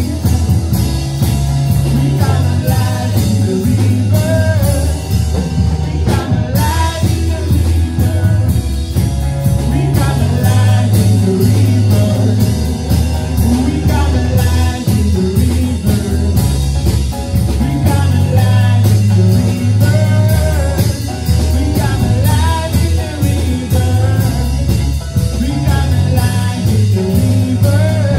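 A worship band song: singing over guitar, bass and a drum kit keeping a steady beat.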